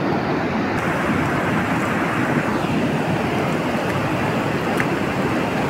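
A fast mountain river rushing over rapids: a steady, loud whitewater noise with no breaks.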